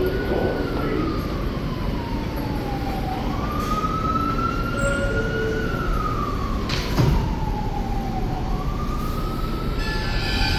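A siren wailing slowly up and down, each rise and fall taking about five seconds, over the steady rumble of a subway train standing at the platform. One sharp knock about seven seconds in.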